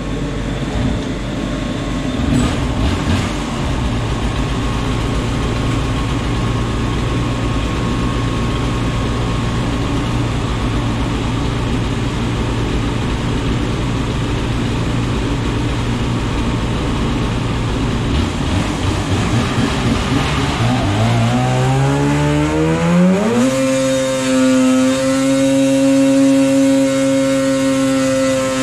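Polaris Axys 800 snowmobile's two-stroke twin, fitted with an SLP single pipe and the stock silencer, running on an engine dyno. It runs roughly at low revs, then about 20 seconds in the throttle opens and the revs climb over about three seconds. The engine then holds steady and louder near 8,000 rpm against the dyno's load, a full-power test pull.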